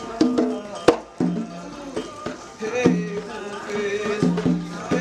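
Umbanda ponto (ritual chant) sung by voices over rattling shaker percussion, with a single sharp crack about a second in.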